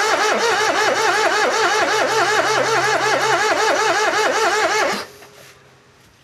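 Perodua Viva 1.0's starter motor cranking the engine with a rhythmic pulse of about five beats a second, then cutting off about five seconds in. The engine does not fire.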